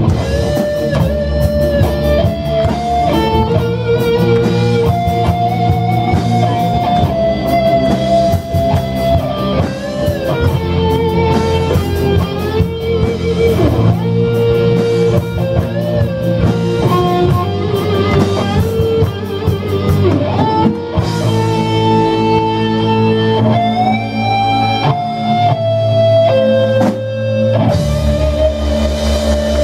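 Live rock band playing, with an electric guitar carrying a melody line with bends over bass guitar and drum kit. About 21 seconds in, the bass and drums drop out for several seconds, leaving the guitar, and they come back in near the end.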